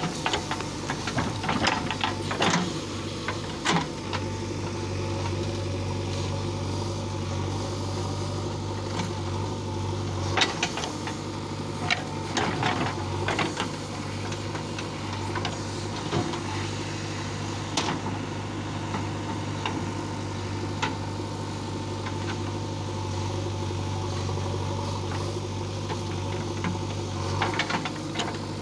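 JCB 3DX backhoe loader's diesel engine running steadily under load while the backhoe bucket digs and scoops soil. The engine grows louder about four seconds in and eases near the end, with scattered sharp knocks and clanks throughout.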